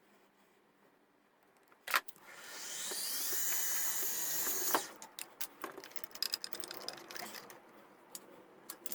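A power drill runs steadily for about two and a half seconds and stops abruptly, after a sharp click about two seconds in; scattered small clicks and knocks of parts being handled follow.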